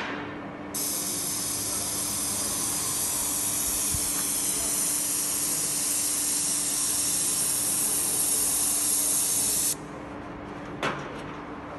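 HYVST SPT 490 airless paint sprayer's gun spraying facade paint: a loud, steady high hiss of atomised paint. It starts just under a second in and cuts off sharply about ten seconds in as the trigger is released. A faint steady low hum runs underneath.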